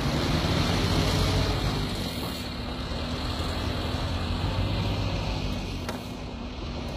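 Heavy diesel engine of a loaded timber truck running steadily, a deep low hum with road and mechanical noise over it.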